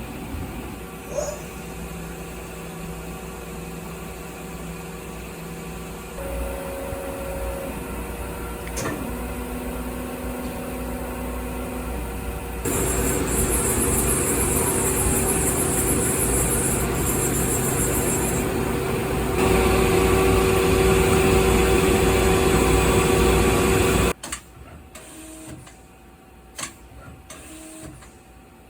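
Tsugami M08DII NC lathe running under power, its steady mechanical hum growing louder in steps a few times, then shutting off suddenly about 24 seconds in. A few faint, evenly spaced ticks follow.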